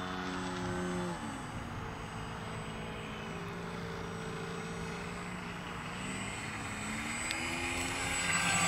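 Radio-controlled motor glider's propeller droning as it flies a low pass. The pitch drops about a second in, holds lower, then rises again near the end.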